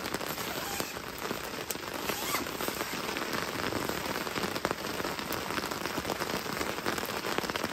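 Steady rain falling, with many individual drops ticking sharply through it.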